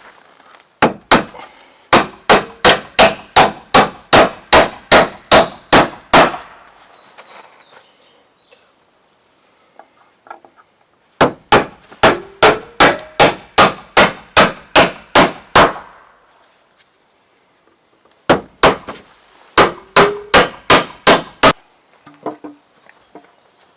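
Hammer blows driving nails, with a ringing clang on each strike. They come in three long runs of rapid, even strokes at about three a second, with pauses between the runs.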